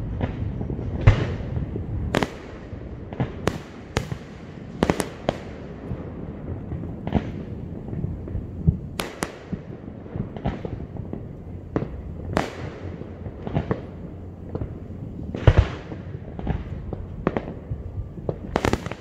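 Fireworks display: shells bursting one after another, sharp reports about every second over a continuous low rumble and echo, with the loudest bangs about a second in and again near the end.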